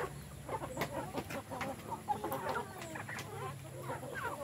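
A flock of free-range chickens clucking, many short calls overlapping, with scattered sharp clicks among them.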